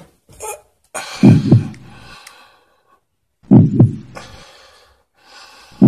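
Slow heartbeat, a deep double thump about every two and a half seconds, three times, under ragged gasping breaths between the beats: the laboured breathing of a man who has been shot and is growing weak.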